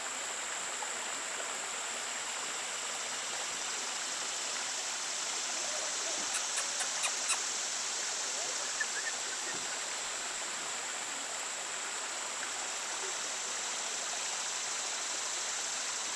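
Steady rushing noise like running water, with an unchanging high hum above it. A quick run of about five faint ticks comes roughly six to seven seconds in.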